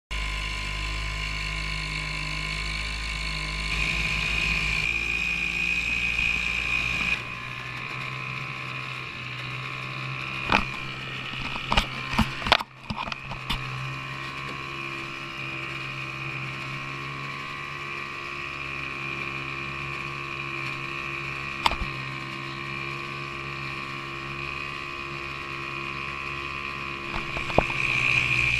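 Small Sears 3 hp outboard motor running steadily at a constant pitch while pushing an aluminum canoe, with water rushing past the hull. A few sharp knocks come in a cluster around the middle, and there is one more later.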